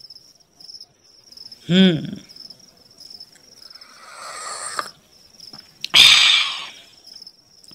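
Crickets chirping in a steady, evenly pulsing high trill. A short hummed voice sound comes about two seconds in, and a loud breathy hiss about six seconds in.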